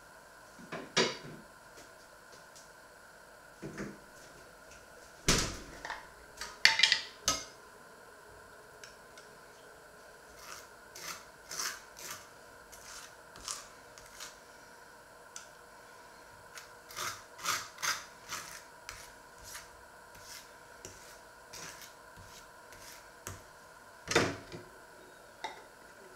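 Table knife scraping a spread out of a glass jar and smearing it over fried bread slices on a wooden cutting board, in many short scraping strokes, with scattered clicks of the jar and utensils and a few louder knocks on the wooden board.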